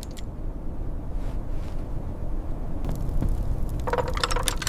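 Steady low rumble of blizzard wind, with a short cluster of crackling clicks near the end.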